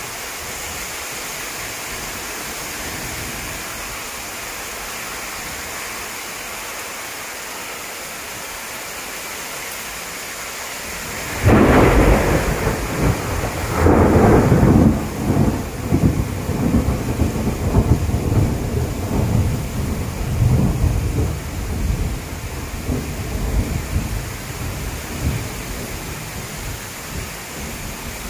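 Steady rain hissing on trees, then about eleven seconds in a sudden loud thunderclap, a second peak a couple of seconds later, and a long rolling rumble that slowly fades.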